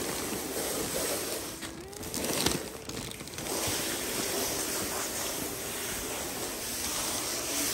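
Steady rushing noise of wind on a phone microphone while walking, with handling rustles and a single sharp knock about two and a half seconds in.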